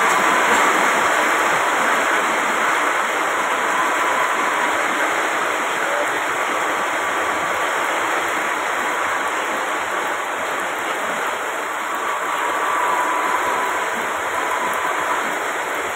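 Heavy rain falling, a steady dense hiss that holds at one level throughout.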